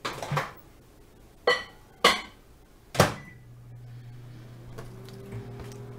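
Microwave oven being loaded and started: four sharp clicks and knocks from its door and controls in the first three seconds, then, just past halfway, the microwave starts running with a steady low hum.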